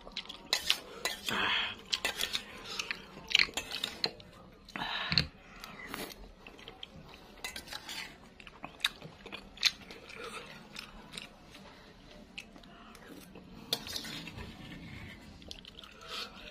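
Metal spoon clinking and scraping against a stainless steel bowl in irregular clicks, mixed with close-up chewing of boci, a meatball dish in sauce.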